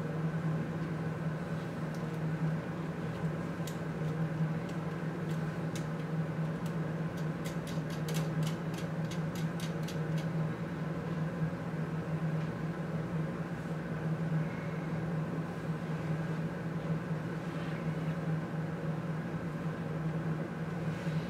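Steady machine hum with a strong low tone. Over it come faint small clicks of nuts and screws being handled while a beam mast is fastened to a circuit board; they are scattered from about four seconds in and come in a quick run between about eight and ten seconds.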